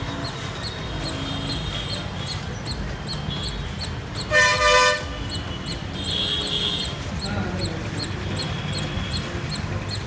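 A squirrel calling with short, high, bird-like chips, about three a second, over traffic noise. A vehicle horn sounds loudly for about half a second about four seconds in.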